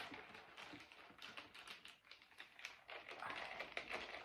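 Faint, scattered light taps and clicks of small objects being handled, with a short soft rustle about three seconds in.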